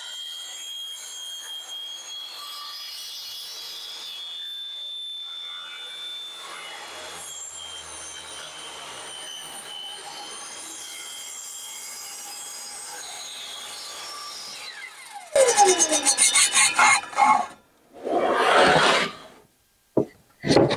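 Ryobi table saw running while a crosscut sled carries a 2x4 through the blade, a steady sawing noise with a thin high whine. About 15 s in it turns much louder for a couple of seconds, with a falling pitch, and a few short loud bursts follow.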